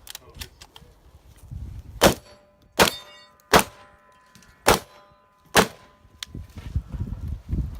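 Five shotgun shots about a second apart, with a steel knockdown target ringing after the second one. Lower thumps and knocks follow near the end.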